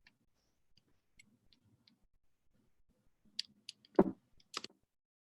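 Faint scattered clicks and ticks over a low room hum, then a louder thump about four seconds in and a shorter one about half a second later.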